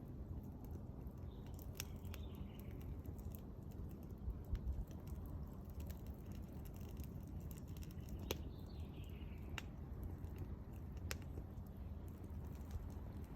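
Wood fire burning with a steady low rumble and scattered sharp crackles and pops. A bird calls faintly three times, each call falling in pitch, near the start, in the middle and near the end.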